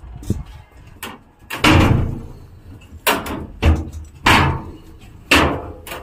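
Metal doors and latches of a WAP7 electric locomotive being opened and shut: a string of sudden, loud bangs and knocks at uneven spacing, each dying away quickly.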